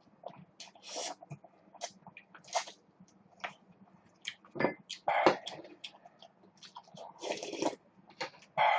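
Close-miked eating: a person chewing and biting food, with irregular crisp crunches and wet mouth smacks, loudest about halfway through.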